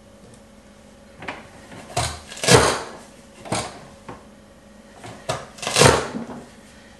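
PL8 handheld vegetable chopper with a hinged press lid, pushed down to force celery through its blade grid: a series of about seven clunks over several seconds, the loudest about two and a half and six seconds in.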